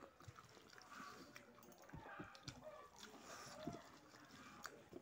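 Faint eating sounds: soft chewing and mouth clicks, with fingers working food on a metal plate, a few small scattered ticks.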